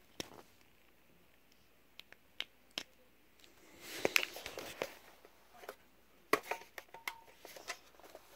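Hands handling an RC truck's wiring. Scattered sharp clicks come first, then short bursts of scuffing and rustling about four seconds in and again near the end, as a receiver lead is pulled and plugged into another channel and the truck is moved about.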